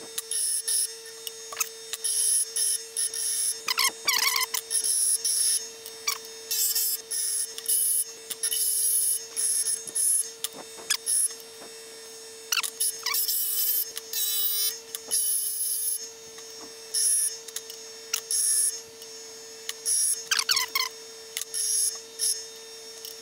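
Delta bench grinder running with a steady motor hum while short steel rods are pressed to the wheel again and again, giving a hissing grind for about a second at a time. The rods are being ground down a little at a time to equal length.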